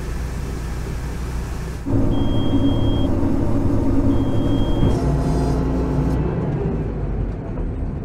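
Claas Lexion 530 combine harvester running: a steady engine drone, then from about two seconds a louder, closer engine sound with two high one-second beeps about two seconds apart. After about six seconds it settles to a lower rumble.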